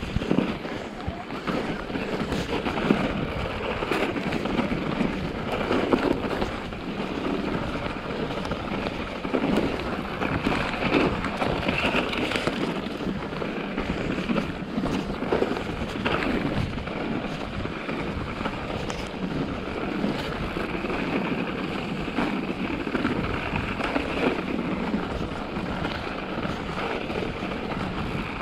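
Mountain bike tyres rolling through snow on a trail, a continuous crunching hiss with occasional knocks and rattles from the bike over bumps, and some wind on the microphone.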